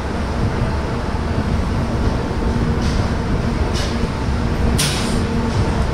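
Passenger train running on the rails: a steady rumble of wheels and track, with a few short hissing bursts in the second half.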